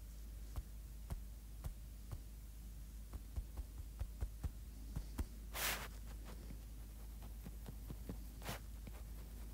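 Stylus tapping on an iPad's glass screen while drawing: irregular light clicks, busiest in the first half, with a brief stroke sound a little past halfway and a shorter one near the end, over a low steady hum.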